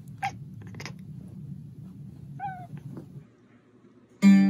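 A cat gives one short, pitched chirp while watching through window blinds. Near the end a cat pawing at an acoustic guitar's strings sets them ringing loudly, dying away over about half a second.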